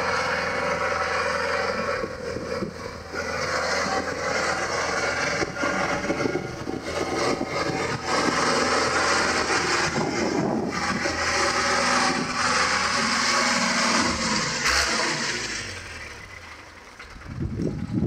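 Diesel engine of a New Holland (Fiat) 70-66S tractor running steadily as the tractor drives. It drops away a couple of seconds before the end, then comes back up loud.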